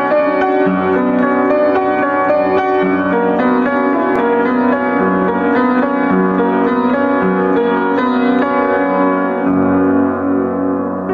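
Upright piano being played solo: a continuous stream of notes ringing over one another above a bass line that changes every second or so.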